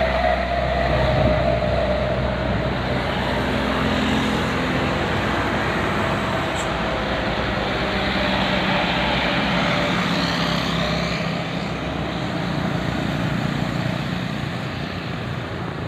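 Roadside traffic noise with vehicle engines running, after a bus horn note trails off in the first second.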